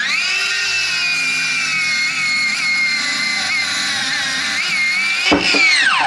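Ryobi circular saw ripping along the grain of 50 mm deep oak, its motor whining steadily with small dips in pitch as the blade takes load. A short knock near the end, then the motor winds down.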